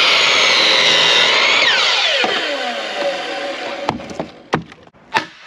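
Power saw cutting oak wood, then the motor shuts off and winds down with a falling whine, followed by a few separate knocks.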